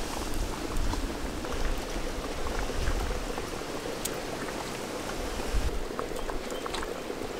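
Fish and prawn curry gravy boiling hard in a large aluminium pot: a steady bubbling with many small pops.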